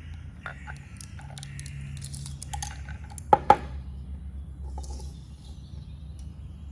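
Clicks and taps of a shower head and measuring tool being handled, including two sharp clicks close together about three and a half seconds in, over a low steady hum.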